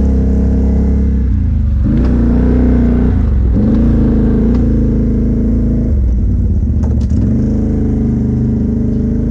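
ATV engine running under throttle. Its pitch drops and climbs back a few times as the rider lets off and gets back on the gas, with a couple of sharp clacks about seven seconds in.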